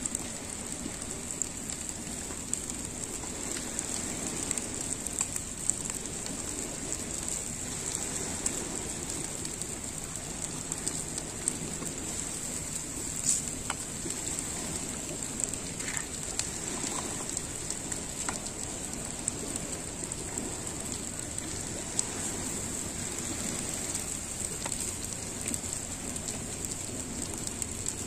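Pangasius catfish grilling over a fire after being basted with spice paste: a steady sizzling hiss with scattered crackles and pops.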